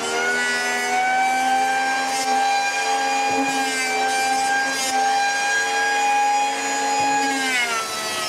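A 900 W electric hand planer running at full speed as it shaves a pine board, giving a steady high whine. Its pitch drops near the end.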